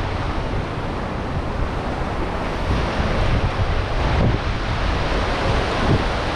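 Fast white-water river rushing over rocks, mixed with wind buffeting the microphone of a vehicle-mounted camera; a steady, unbroken noise.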